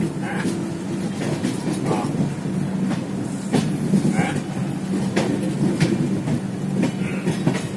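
Indian Railways express train running through a station at speed without stopping: a steady rumble with its wheels clicking over rail joints at uneven intervals.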